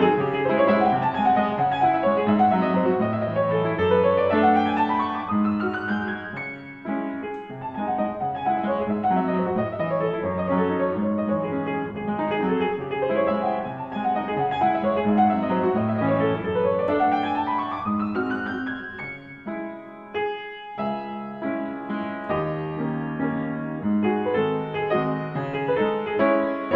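Background piano music, flowing notes with two quick rising runs up the keyboard.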